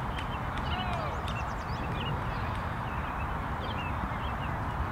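Small birds chirping here and there over a steady low rumble of wind on the microphone.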